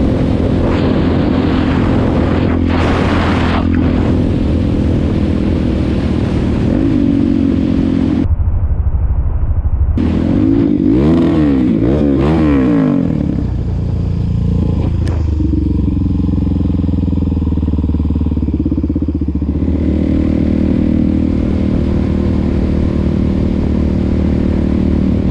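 Motorcycle engine running while riding. The revs rise and fall several times in quick succession about ten seconds in, then settle to a steady cruise.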